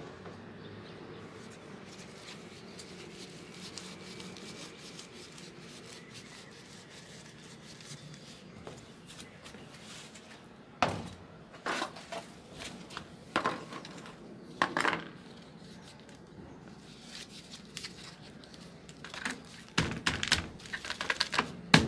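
Knocks on a plastic plant pot as it is tapped to loosen the soil and root ball for turning the plant out: a few single thumps spaced a second or two apart from about eleven seconds in, then a quicker run of knocks near the end, the last one the loudest. Before the knocks there is only a faint steady background.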